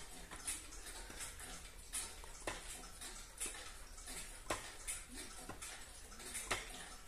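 All-wooden pendulum clock with a wooden movement, ticking steadily at about two ticks a second.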